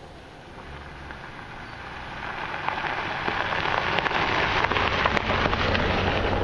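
Nissan Patrol 4x4 driving past on a loose gravel riverbed: tyres crunching and crackling over the stones, growing louder as it approaches and loudest as it passes about four to six seconds in, with a low engine hum beneath.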